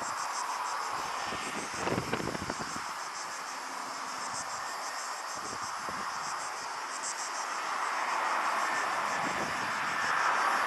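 Airbus A320 airliner on final approach, its jet engines a steady rushing drone that grows louder as it nears. Insects chirp in a rapid high pulse throughout, and a brief low rumble comes about two seconds in.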